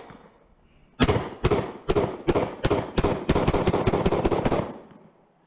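SIG Sauer P320 striker-fired pistol in .40 calibre firing a rapid string of more than a dozen shots, starting about a second in, the shots coming faster toward the end and stopping shortly before the end, with echo filling the gaps between them.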